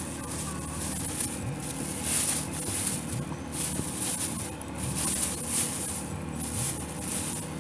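Thin plastic bags rustling and crinkling in irregular handfuls as they are opened and rummaged through, over a steady low hum.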